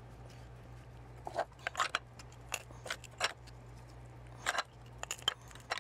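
Quahog shells being broken apart by hand, a scattered run of sharp clicks and cracks of shell on shell that starts about a second in.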